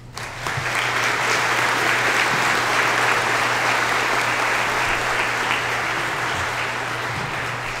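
Audience applauding, starting about half a second in and holding steady, easing off slightly near the end.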